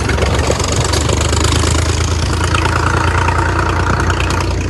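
Farm tractor engine running steadily while towing a wooden trailer, heard from the trailer.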